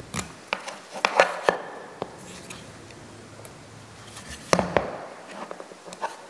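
Ceramic scraper shaving the edges of a soft white plastic tray: short, scattered scraping strokes and small clicks, with a louder knock of handling a little after four and a half seconds in.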